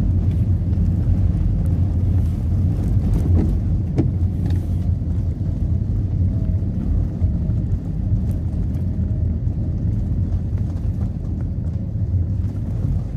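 Steady low rumble of a moving car heard inside the cabin: engine and tyre noise on the road. A single light click about four seconds in.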